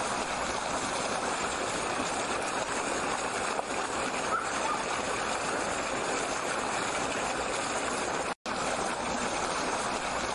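Steady, even rushing noise like flowing water, cutting out for an instant about eight seconds in.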